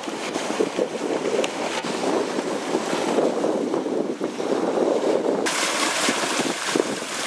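Wind buffeting the microphone and water rushing along the hull of a sailing yacht under way. About five and a half seconds in it changes abruptly to a brighter, hissing rush of wake water.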